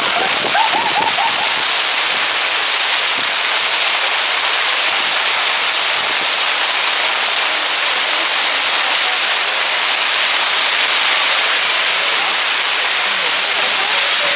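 Heavy rain shower pouring down on the road and harbour, a loud, steady hiss of rainfall.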